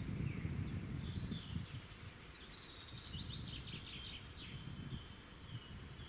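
Small birds chirping and trilling, several short calls and a longer trill in the second half, over a low steady rumble.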